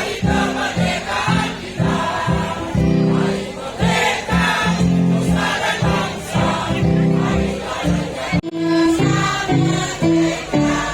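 A choir singing, with a brief break about eight seconds in.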